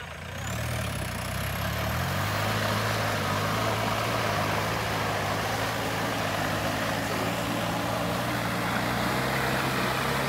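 Engine of an off-road jeep running under load as it drives through a flooded mud field. It picks up revs about half a second in and then holds a steady pitch, with mud and water churning under the big tyres.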